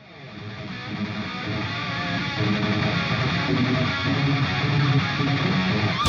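Background music led by strummed guitar, fading in at the start and then playing steadily.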